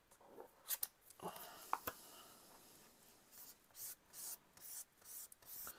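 Faint, intermittent rustling and rubbing of a sheet of baking paper (hydro sheet) being handled and laid onto the wet sponge of a wet palette, with a couple of light ticks about one and two seconds in.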